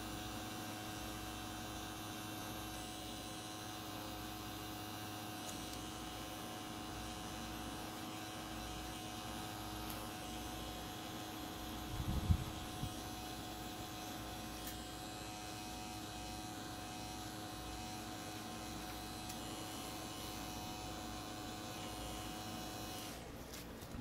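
Tattoo machine running with a steady hum of fixed pitch while shading. A brief low bump about halfway through, and the hum stops just before the end.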